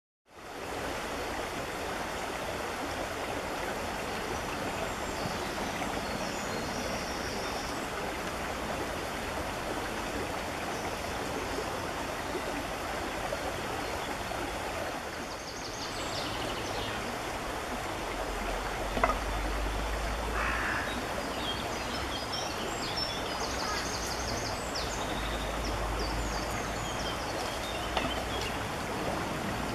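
Steady rush of a fast, shallow stream running over rocks, with a small bird's high chirps a few times. Low rumbles come twice in the second half.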